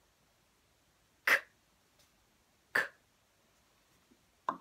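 A woman saying the /k/ sound on its own twice, each a short voiceless "k" with a puff of breath, about a second and a half apart. A fainter short mouth sound follows near the end.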